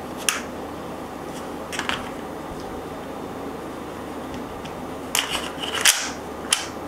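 Sharp clicks and clacks of a Walther CP99 air pistol and its magazine being handled: two single clicks early, then a quick cluster of clicks near the end, the loudest about a second before the end.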